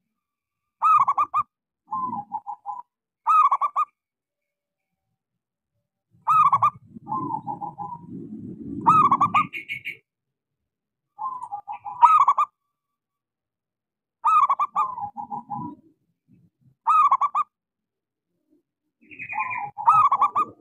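Zebra dove (perkutut) cooing its song: short, fluttering, high coos given in phrases every one to three seconds, about eight in all, with a pause of a couple of seconds between two of them. A duller low sound runs under the phrases for a few seconds in the middle.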